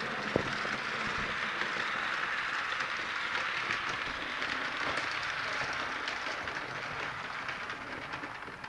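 Märklin 3005 HO-scale BR 23 model steam locomotive running along the track with its coaches: a steady whirr of the motor and wheels on the rails, with a sharp click about half a second in. The sound fades near the end as the train moves away.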